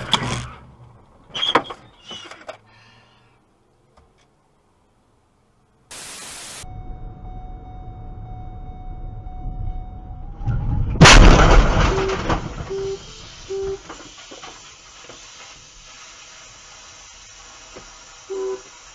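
A loud car collision heard from a dashcam about eleven seconds in: a sudden impact with crunching noise trailing off over a few seconds. It is followed by short electronic beeps repeating in small groups.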